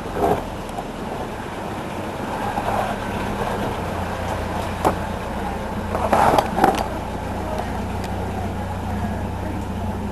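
Steady low hum of a vehicle engine running, with a single sharp click about five seconds in and a short clatter of small knocks a second later.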